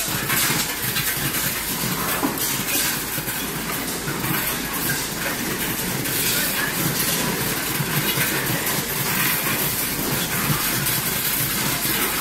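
Candlenut processing machine running, with nuts clattering steadily through its stainless-steel chute.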